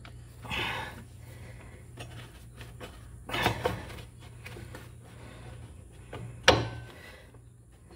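Scattered clunks and knocks of hands working the traction drive belt onto the pulleys under a John Deere Z920M zero-turn mower. The loudest is a sharp knock about six and a half seconds in, over a steady low hum.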